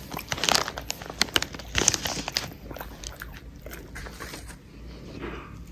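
A small white dog crunching a hard treat: a quick run of crunchy bites over the first two seconds or so, then a few lighter chews as it finishes.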